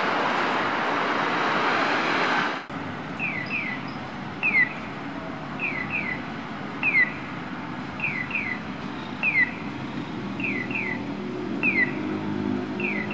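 Steady road traffic noise that cuts off about two and a half seconds in. Then the electronic bird-chirp tones of a Japanese pedestrian crossing signal: short falling chirps, a double and a single alternating about once a second in call-and-answer, over faint street noise. A low steady hum joins near the end.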